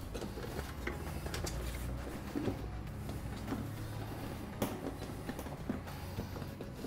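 A silicone lid being stretched and smoothed over the rim of a stainless steel pan: faint rubbing with a few light taps and clicks, over a steady low hum.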